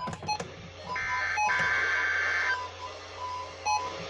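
NOAA Weather Radio alert signalling over a receiver's speaker: a harsh warbling burst of SAME digital header data about a second in, lasting about a second and a half, for a Required Weekly Test. Around it, a weaker tone near 1 kHz keeps breaking in and out, along with a few short beeps.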